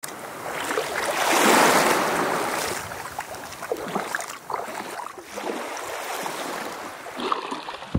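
Small waves washing up over shallow water at a sandy shoreline, a steady wash that swells loudest about a second in and then settles.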